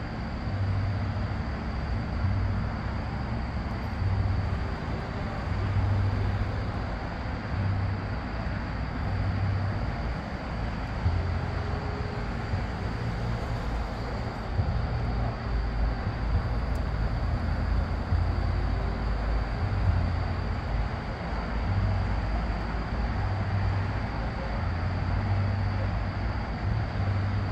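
Steady outdoor rumble of road traffic with uneven low swells and a faint steady high tone above it.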